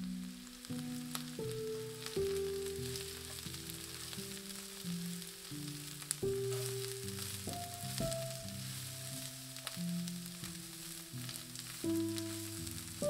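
Sliced onions, carrots and red pepper sizzling in hot vegetable oil in a nonstick frying pan, a steady hiss with fine crackles. Background music of slow held notes plays over it.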